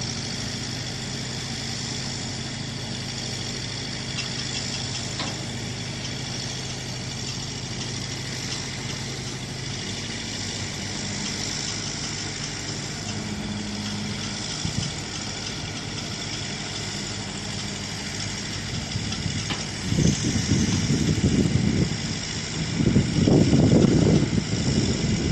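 Truck-mounted mobile crane's diesel engine running steadily under load as it hoists the dome roof, a low even hum. About twenty seconds in, loud irregular low rumbling starts and comes and goes.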